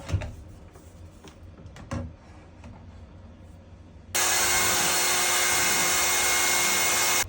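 Two light handling knocks, then a hair dryer switched on about four seconds in, blowing with a loud, steady hiss and a faint whine, switched off abruptly near the end.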